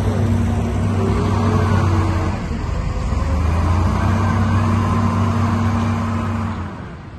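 Heavy diesel engines of wheel loaders, one a Caterpillar 980, running under load as they lift and push buckets of dirt; the engine note dips briefly and then picks up again. The sound fades out near the end.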